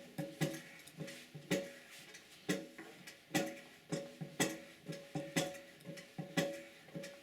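Background music of plucked-string notes over a ticking beat, with a sharp tick roughly once a second.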